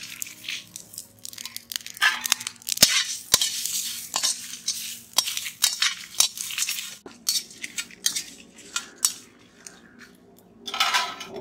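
Metal spatula scraping and clinking against an iron kadai, stirring whole spices, dried red chillies, cashews and grated coconut as they dry-roast. The scrapes come irregularly, with crunchy rustling from the dry ingredients.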